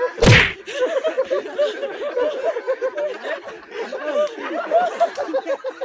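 A group of men laughing hard together, a dense run of quick 'ha-ha' bursts from several voices at once. A single loud thump comes a fraction of a second in.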